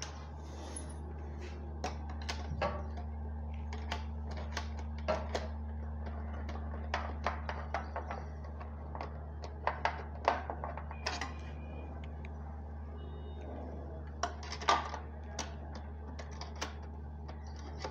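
Aluminium sliding window sash and frame being handled and its wheels adjusted: irregular light metallic clicks, taps and knocks, louder at times, over a steady low hum.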